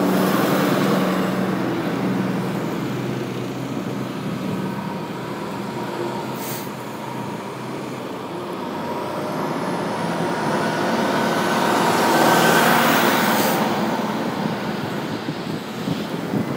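Motor traffic on the street: a heavy vehicle's engine running steadily, growing louder as it passes and loudest about twelve to thirteen seconds in, then fading.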